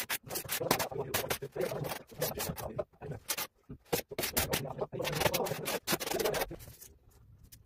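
Trowel scraping across a ceiling, spreading tile adhesive in a run of rough strokes with short breaks; it dies down about six and a half seconds in.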